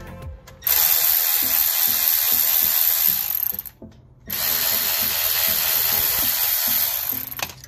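Milwaukee 3/8-inch cordless ratchet running twice, about three seconds each with a short pause between, spinning out the two 12 mm brake caliper bolts.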